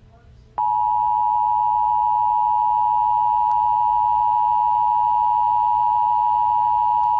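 Emergency Alert System attention signal: a loud, steady two-tone electronic alert tone (853 and 960 Hz together) that starts abruptly about half a second in and holds without a break, the tone that announces an emergency alert message.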